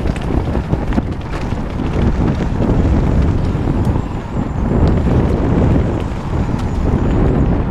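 Wind buffeting a helmet-mounted GoPro's microphone and mountain bike tyres rolling fast over a dirt and gravel trail, with scattered clicks and knocks from the bike rattling over stones. The rumble gets louder about two seconds in as speed builds.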